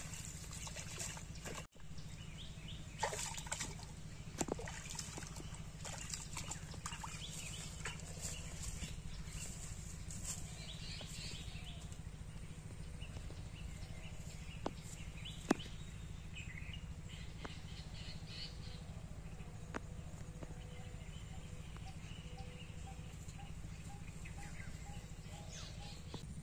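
Outdoor ambience over a steady low rumble: birds call now and then, including a run of evenly repeated notes in the second half, and a few sharp clicks stand out, the loudest about halfway through.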